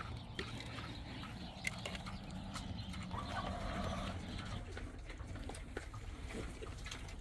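Pigs feeding on corn and grain: scattered crunching clicks and a few soft grunts over a low steady rumble.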